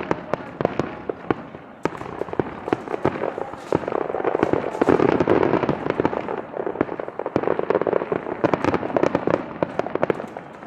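Fireworks display: a rapid volley of crackling bursts and bangs, thickening into a dense swell about four seconds in and again around eight seconds.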